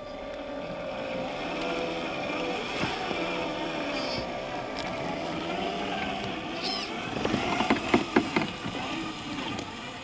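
Electric motor and gears of a scale RC crawler truck whining as it crawls, the pitch rising and falling with the throttle. A burst of sharp clicks and cracks between about seven and eight and a half seconds in is the loudest part.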